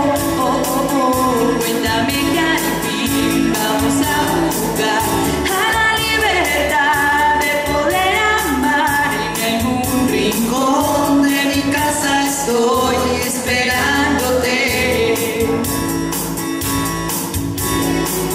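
Live singing into microphones, accompanied by an electronic keyboard playing sustained chords over a steady programmed beat.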